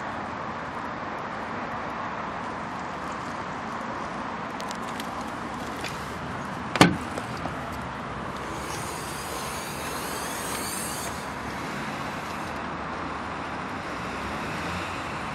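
Renault Trafic van's rear tailgate latch clunks open once, about seven seconds in, followed by a few seconds of faint high hiss as the tailgate is raised. A steady outdoor background noise runs underneath.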